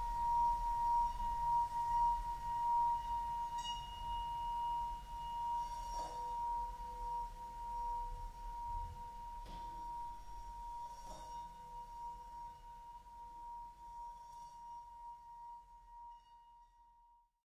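A steady, high ringing tone. A soft strike about six seconds in adds a lower ringing tone, and two more soft strikes follow a few seconds later. All of it slowly fades away and stops just before the end.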